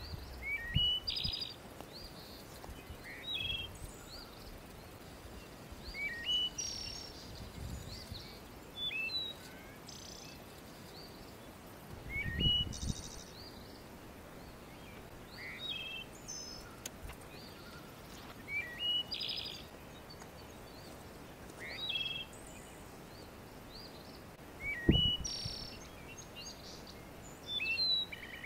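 A songbird singing the same short phrase over and over, about every three seconds: a rising whistled note followed by a higher trill. Two low thumps come about halfway through and again near the end.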